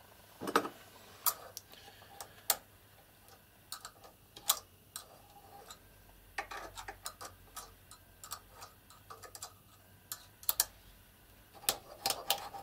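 Small steel parts of a Stirling 14P .22 rifle bolt clicking and tapping against each other as it is put back together by hand, with its cap, spring and a thin pin being fitted. The clicks are light and irregular, with short clusters about six seconds in and near the end.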